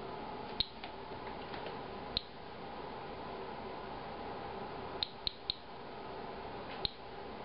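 Inspector Alert Geiger counter clicking with its audio on, about six sharp clicks at irregular intervals with three in quick succession about five seconds in, over a faint steady hum. Each click is a detected ionizing event from background radiation and possibly from a filter that beer has been poured through.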